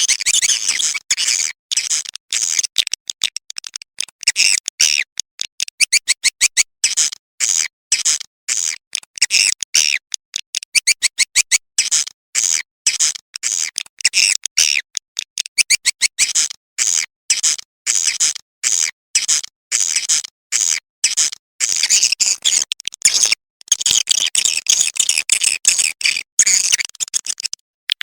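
Recorded swiftlet calls played as a lure for a swiftlet nesting house: rapid, high-pitched twittering chirps in quick clipped runs separated by short gaps, repeating steadily.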